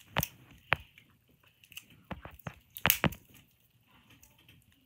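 A few sharp taps and clicks close to the microphone, two near the start and a quick cluster about two to three seconds in, from small craft items being handled on a tabletop.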